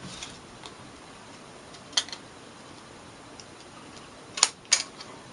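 Crop-A-Dile hole punch clicking as it punches through folded cardstock: a light click about two seconds in, then two sharp clicks close together near the end.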